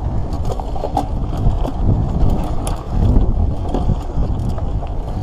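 Mountain bike riding fast down a dirt singletrack: a steady low rumble of tyres over the ground and wind on the microphone, with scattered sharp clicks and rattles from the bike.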